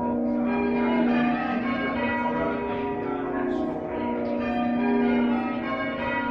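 Church bells ringing, several bells struck one after another in quick succession, their tones overlapping and humming on.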